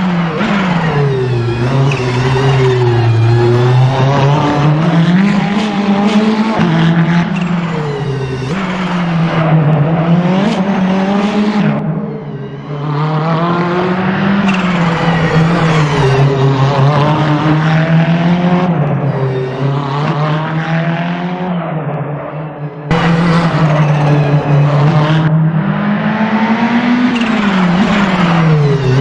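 Ferrari 488 GT3's twin-turbo V8 racing engine under hard acceleration. The revs climb and drop over and over through gear changes and lifts for corners, with a couple of brief drops in level where the throttle comes off.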